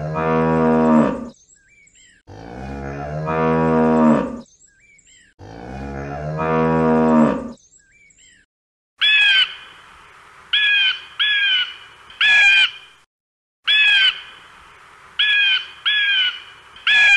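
Holstein-Friesian cows mooing: three long, deep moos that swell in level, with faint bird chirps between them. After a gap, a bird of prey gives about eight short, high, down-slurred calls, singly and in pairs.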